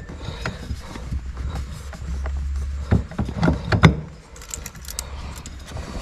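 Light clicks and knocks of an aftermarket steering-wheel short hub being handled and lined up on a car's steering column, a few sharper clicks about three to four seconds in.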